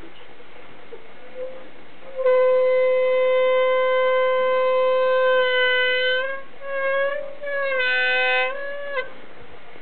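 A walkers' swing gate (stegel) squeaking as it swings: one long, steady squeal starting about two seconds in, then several shorter wavering notes that bend in pitch before it stops near the end. The uploader hears the squeak as slightly muffled by the thin layer of snow on the gate.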